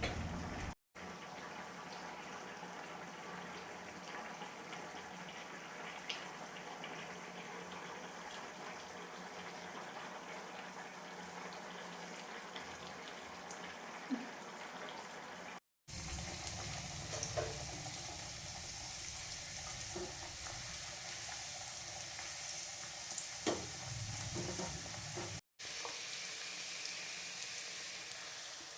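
Hot oil sizzling steadily as bhature deep-fry, with a few light clicks of a utensil in the middle stretch. The sizzle breaks off for an instant three times.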